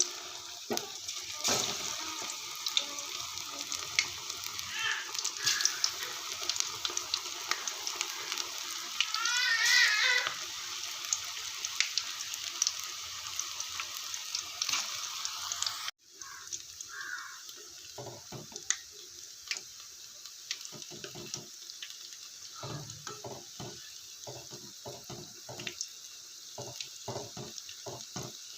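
Onion pakodas frying in hot oil: a steady sizzling hiss with fine crackling. A short warbling chirp comes about ten seconds in. After a sudden cut past the middle, the sizzle is quieter and scattered sharp clicks and knocks sound over it.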